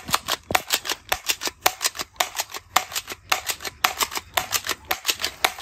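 Battery-powered toy machine gun firing: a rapid, steady rattle of sharp clicks, about eight a second.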